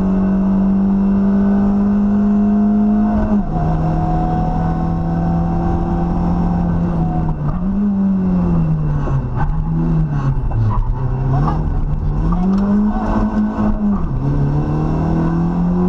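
Rally car engine at high revs, heard from inside the cabin. It upshifts about three seconds in, then its revs dip and rise several times from about halfway and it upshifts again near the end, with scattered clicks during the middle part.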